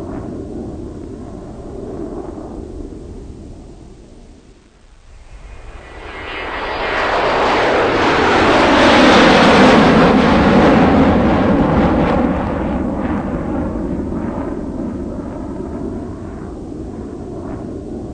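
Farm tractor's diesel engine working under load as it pulls a trailer up a dirt ramp. It dips briefly, then swells to a loud peak about halfway through before settling back to a steady rumble.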